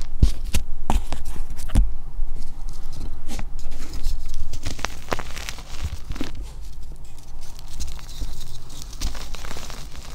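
Hands digging into and squeezing loose gym chalk powder and crumbled lumps: soft crunching and crumbling with scattered sharper crunches, busier in the first half.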